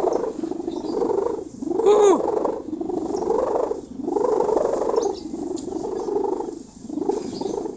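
Sendaren kite hummer of packing strap and mica buzzing with a deep snoring growl, swelling and fading about once a second. About two seconds in, one clear pitched whoop rises and falls.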